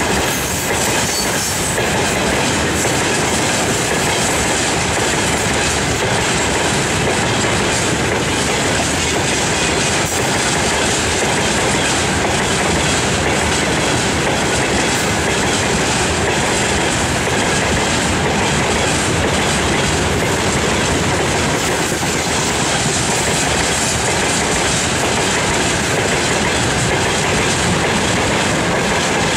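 Long freight train of railway tank cars rolling past close by, the wagons' wheels clattering steadily on the rails.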